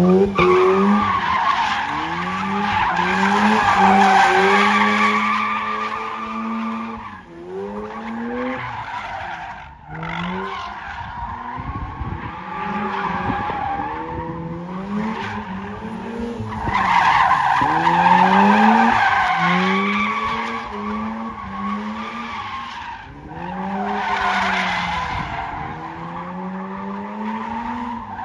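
Mazda RX-8's rotary engine revving up and down again and again while its rear tyres squeal through drifts and donuts. The tyre squeal is loudest about four seconds in and again around eighteen seconds, easing briefly between slides.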